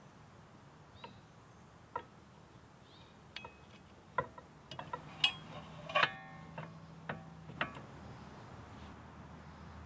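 Metal brake parts, the pads, caliper and bracket of a car's rear disc brake, clicking and clinking as they are fitted back together by hand. There are about a dozen light clicks, and a louder ringing clink about six seconds in.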